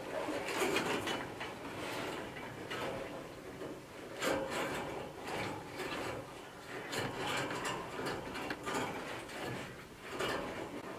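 Chicken wire and a wire fence panel being handled and fastened together by hand: irregular scraping and rubbing of wire with small clicks, coming in several clusters.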